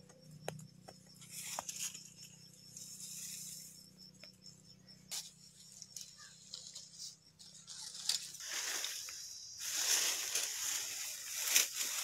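Rustling with scattered sharp clicks, growing louder and denser about eight seconds in.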